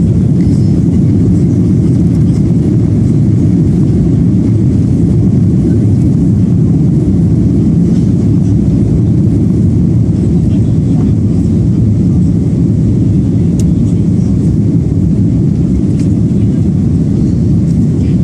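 Steady low rumble of a jet airliner's engines and rushing air, heard from inside the passenger cabin during the climb.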